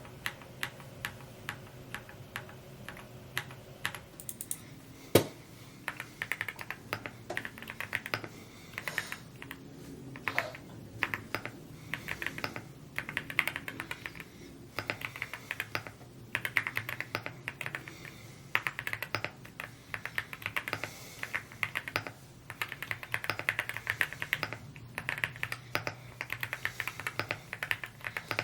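Fast continuous typing on a Rainy75 aluminium-case mechanical keyboard: a dense, irregular run of key clacks, with one much louder sharp clack about five seconds in.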